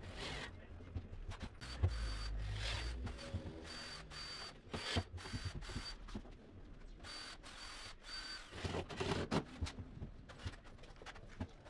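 Cordless drill-driver running in short bursts, driving screws into MDF, with a sharp click near 2 s and knocks and clicks of the cabinet's drawer fittings being handled.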